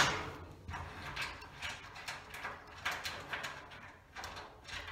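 Metal nut being wound off a cut-down threaded bolt by hand, chasing any burrs from the cut thread: a sharp click at the start, then light, irregular metallic clicks and scrapes.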